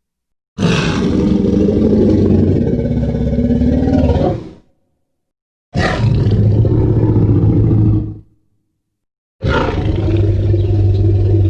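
Tyrannosaurus rex roar sound effect from the Jurassic Park/World films, played three times in a row with silence between: a long roar of about four seconds, then two shorter ones, each deep with a strong low rumble.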